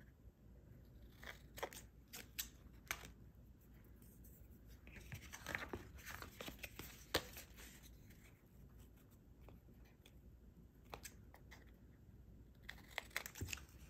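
Scissors snipping through paper tag stock, faint, sharp snips scattered every second or so as the tag's corners are clipped off.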